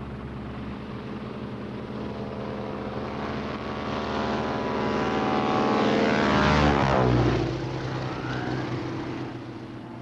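Propeller-driven biplane's piston engine running as the plane flies low toward and overhead, growing steadily louder to a peak about seven seconds in, then dropping in pitch as it passes and fading away.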